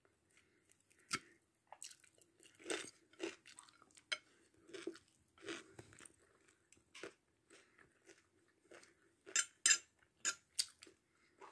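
A person chewing biryani with fried cashew nuts and cucumber and tomato salad: irregular chews and crunches, with a louder run of crunches near the end.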